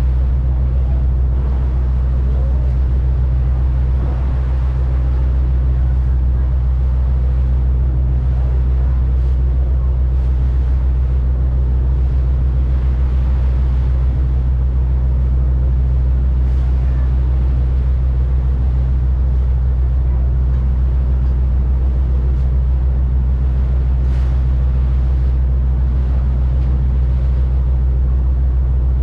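Boat engine running steadily underway: a deep, even drone with a low hum that never changes.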